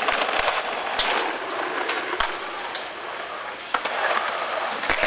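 Skateboard wheels rolling over concrete, with several sharp clacks of the board hitting the ground.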